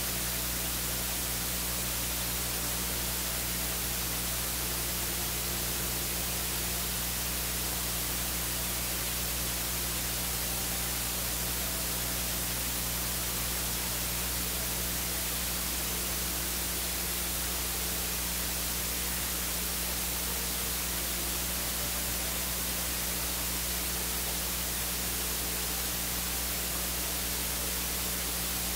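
Steady, even static hiss with a low electrical hum beneath it, unchanging throughout; no other sound stands out.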